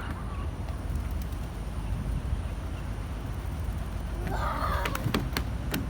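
Outdoor background rumble, with a brief muffled voice about four and a half seconds in and a few sharp clicks near the end.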